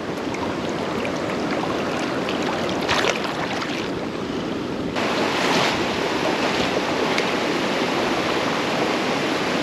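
Steady rush of flowing river water, getting brighter and a little louder about five seconds in.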